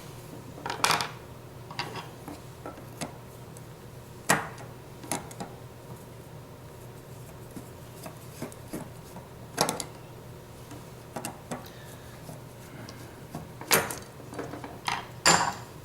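Scattered clicks and light knocks of small airsoft gearbox parts being handled and set down on a workbench, a few sharper taps among softer rubbing.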